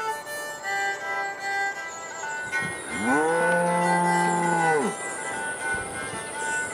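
A cow moos once: a single long call of about two seconds, about three seconds in, rising at the start and dropping off at the end. Background music with a violin plays throughout.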